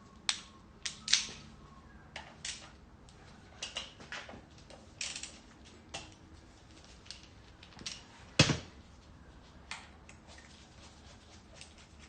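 Irregular metallic clicks and clinks of hand tools and small metal parts being handled while a Fiat 500 engine is taken apart, with one heavier clank about two-thirds of the way through.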